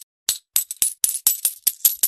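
Metal coins clinking and dropping in a quick, irregular shower of bright chinks, starting after a brief gap at the start.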